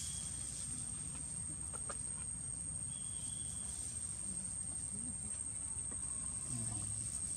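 Outdoor ambience: a steady high-pitched insect drone, with a few short, faint, low clucking calls in the second half, the clearest near the end.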